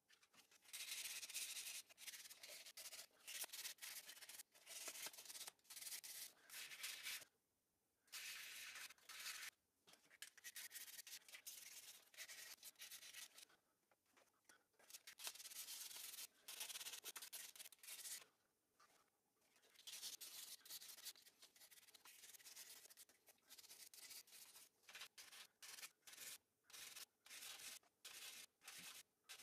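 Hand sanding of a small aluminum pendant piece on 400-grit silicon carbide sandpaper: runs of quick back-and-forth strokes that stop and start every few seconds, turning into shorter, choppier strokes near the end.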